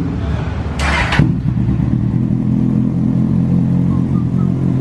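Kawasaki Z800 inline-four with a full Akrapovič exhaust system running, with a short, loud, noisy burst about a second in. It then settles into a steady idle.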